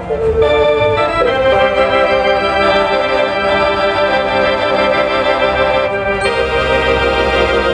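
Wurlitzer theatre organ played live: full held chords that shift a few times.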